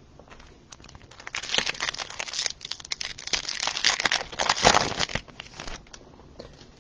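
Wrapper of a 2020 Topps Chrome baseball card pack being torn open and crinkled by hand, a crackling rustle lasting about four seconds.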